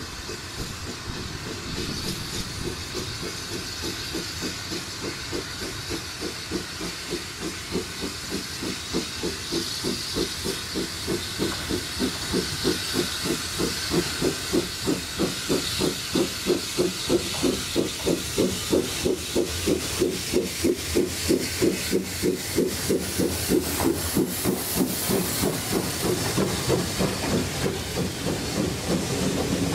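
Bagnall industrial steam locomotive No. 2 approaching and passing, its exhaust beats at about two a second growing steadily louder over a constant hiss of steam. A sharper hiss of steam comes as it draws level near the end, and the coaches begin to rattle past.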